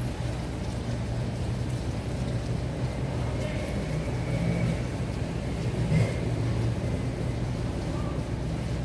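Steady low mechanical hum, with a brief knock about six seconds in.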